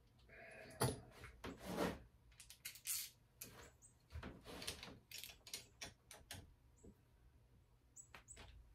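Scattered light clicks, knocks and rustles of small metal parts and tools being handled while working on a dirt bike's handlebar lever.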